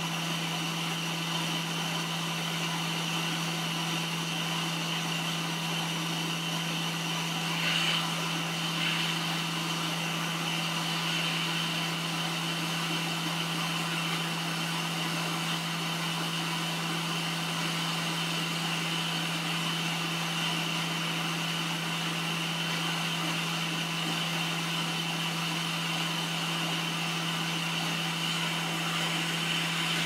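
Hot air rework station running steadily: a fan hum with a hiss of blown air, heating a circuit board to melt the solder under a small SMD connector so it can be lifted off. A brief faint tick about eight seconds in.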